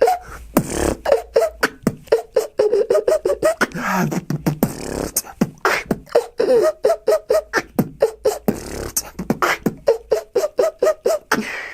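Beatboxing: a fast beat of mouth-made kicks, snares and hi-hat clicks, worked through with short pitched whistling notes of the inward 'steam train' or 'blizzard' whistle, drawn in on the inhale with the lower lip tucked under the teeth.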